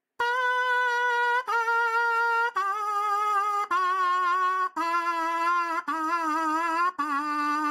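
Trumpet mouthpiece buzzed through a Warburton buzzer practice aid. It plays a descending line of about seven sustained notes, each roughly a second long with a short break between, and the lower notes waver in pitch. The aid adds resistance so the buzz feels like playing the whole trumpet.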